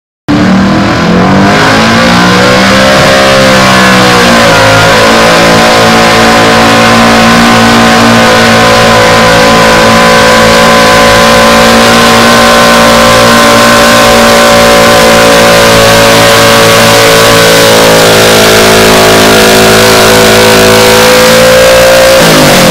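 Pro Street pickup truck's engine at full throttle, pulling a weight-transfer sled. Its pitch rises and dips over the first few seconds, then holds a steady high rpm through most of the pull and falls off at the very end.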